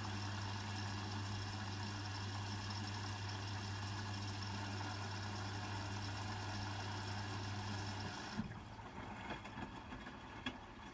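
Hotpoint WMFUG 942 washing machine filling with water: the inlet valve hums steadily over the hiss of incoming water, then shuts off abruptly about eight seconds in.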